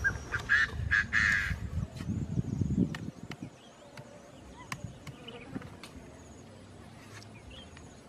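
Green bamboo tubes being set down and shifted against each other on bare soil: dull knocks and rubbing for the first three seconds, with two loud squeaky sounds about a second in. Faint chirps and clicks follow.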